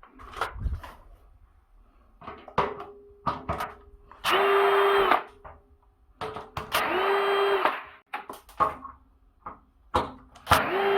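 A small electric motor whining in short runs of about a second, three times, spinning up and running down each time, with clicks and knocks of handling in between.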